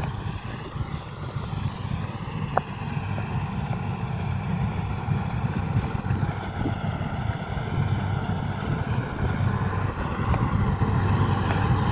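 A rice combine harvester's engine running steadily, a low even drone.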